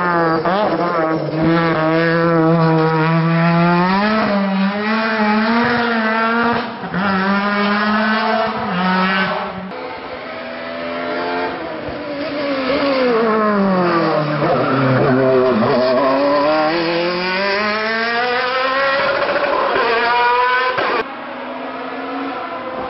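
Hillclimb race cars at full throttle, one after another. A touring car's engine revs climb through the gears with short dips at each upshift. Then an open sports prototype's engine note drops low and rises again as it passes. Near the end a quieter, more distant race car engine is heard.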